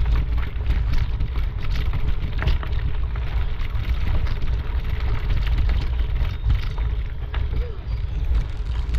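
Steady low rumble of wind and handling noise on the microphone of a camera carried along a trail, with scattered light knocks and rustles.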